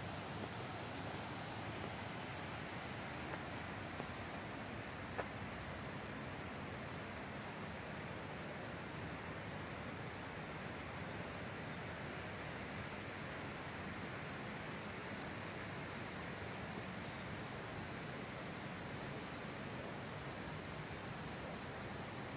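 Insects, crickets or cicadas, giving a continuous high-pitched trill at one steady pitch over a steady background hiss, with a faint click about five seconds in.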